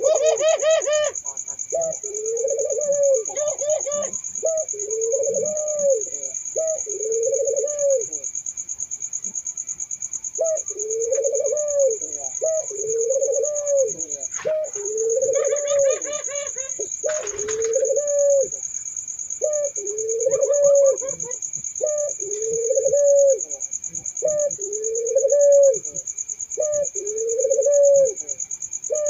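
Barbary doves (burung puter) cooing over and over, each coo a low call that rises and falls in pitch, repeating every couple of seconds. A steady high-pitched buzz runs underneath, and a few short, higher warbling chirps come in near the start and in the middle.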